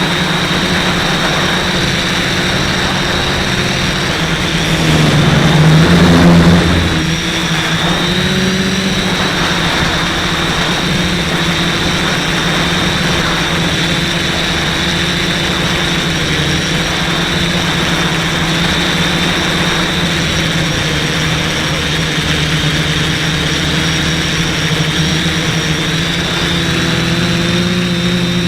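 Multirotor quadcopter's Sunnysky 980kv brushless motors and propellers whining steadily in flight, with a louder surge of throttle about five seconds in.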